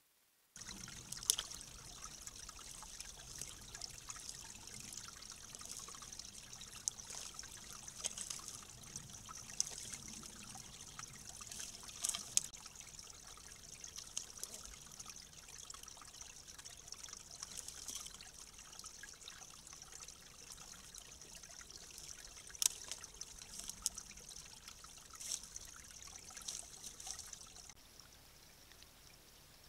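Faint, steady trickle of water running through a leaking beaver dam, with a few short sharp clicks scattered through it.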